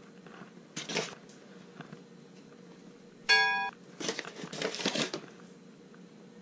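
Flour being scooped with a plastic measuring cup and poured into a plastic mixing bowl: soft scraping and rustling, once about a second in and again for about a second near the end. About three seconds in, a short steady beep sounds, louder than the flour.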